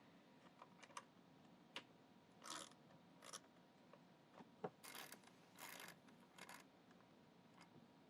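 Faint clicks and several short rasping bursts from a wrench loosening the 7/16 nuts that hold a carpet extractor's vacuum motor in place.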